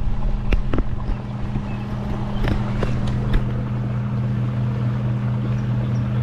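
Steady low mechanical hum with an even rushing noise underneath, unchanging throughout, with a few sharp clicks in the first few seconds.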